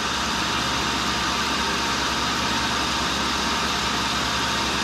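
Tool and cutter grinder running steadily while idle between passes, with its motor and spindle giving an even whir and hiss over a low hum.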